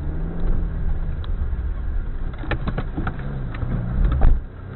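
Car engine running as the car drives over a rough dirt and grass track, heard from inside the cabin. The engine pitch rises and falls, over a low rumble, with several sharp knocks as the car goes over bumps.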